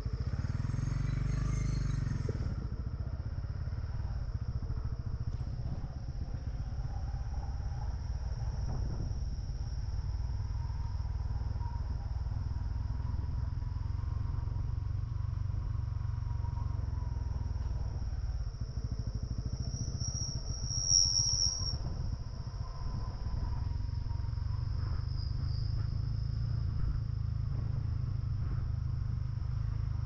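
Honda CB150R motorcycle's single-cylinder engine running with a steady low rumble, with a steady high insect chirring over it.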